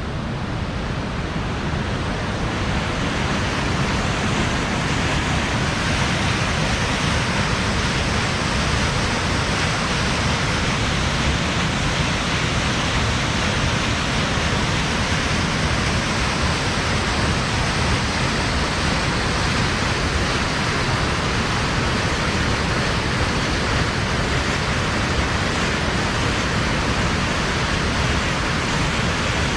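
Rushing water of Ryūzu Falls, a cascade waterfall: a steady, even noise that grows a little louder over the first couple of seconds and then holds.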